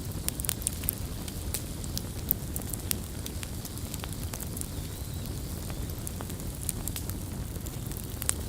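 Campfire wood burning: many sharp, irregular crackles and pops over a steady low rumble of the flames.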